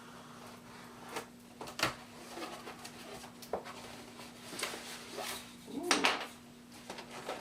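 A cardboard box being cut open with a craft knife and handled, with scattered scrapes, rustles and knocks of cardboard.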